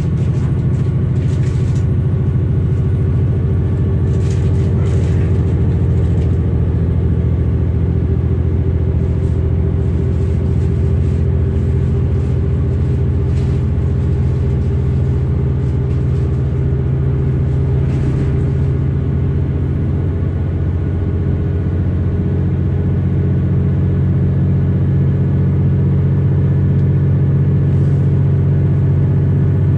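Class 323 electric multiple unit running at a steady speed, heard from on board: a loud, even low rumble with a few steady hum tones and occasional faint clicks.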